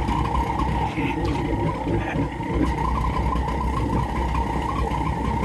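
Gas-fired smelting furnace running with a steady rushing hum and a low rumble, heating for a smelt of gold concentrates and flux.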